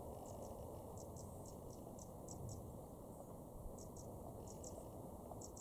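Faint, short high-pitched cricket chirps repeating irregularly, several a second, over a low steady background rumble.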